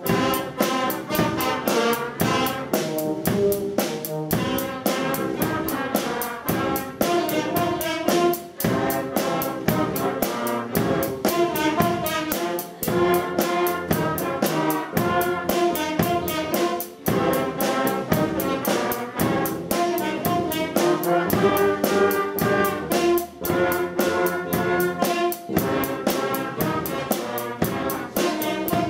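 School wind band of clarinets, saxophones and brass (trumpets, trombones, euphoniums and tubas) with a drum kit, playing a tune together over a steady drum beat.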